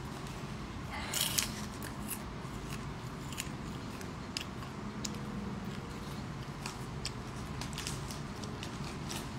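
A person chewing popcorn close to the phone's microphone: soft, irregular crunches, with a louder cluster about a second in, over a low steady room hum.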